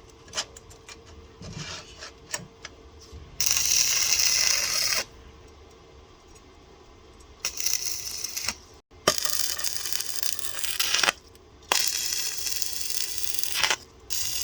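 Stick (arc) welding on a steel frame: four or five bursts of crackling arc, each lasting about one to two seconds, with short pauses and small clicks between them.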